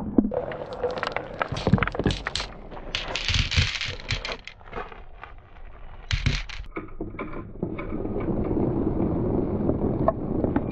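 Marbles rolling and clacking down a marble run track: many sharp clicks as they knock against each other and the track, a dense clatter about three seconds in, a loud burst just after six seconds, and a steady rolling rumble over the last few seconds.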